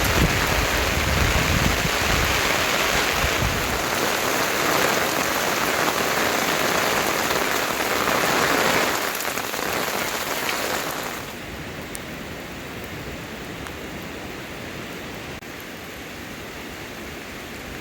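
Heavy rain pouring down in a steady hiss, with a low rumble in the first few seconds. About eleven seconds in it turns noticeably quieter.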